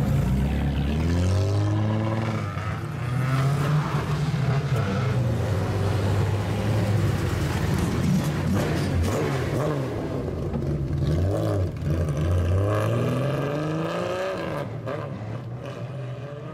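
Straight-piped exhausts of lowered old Japanese cars, loud and revved in repeated blips as the cars pull out one after another; the engine note rises and falls over and over and eases off near the end.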